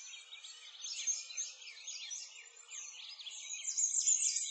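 Many small birds chirping at once, a dense chorus of quick high chirps that grows louder near the end.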